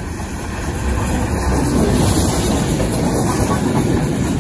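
Steam-hauled train passing close by, a heavy rumble that grows louder about a second in.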